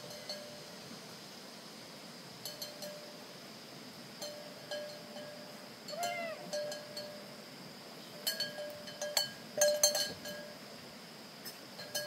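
Hard objects clinking, each tap ringing briefly at the same few pitches: a few taps around two and four seconds in, then a busier, louder run of clinks from about eight to ten seconds in. A short rising-and-falling call comes about six seconds in.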